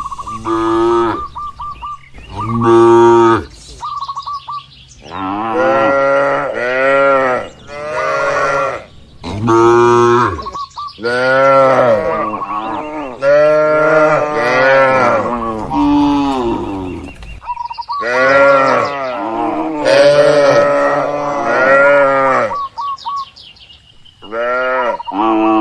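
A herd of cattle mooing over and over, about a dozen long calls, several overlapping and some rising and falling in pitch.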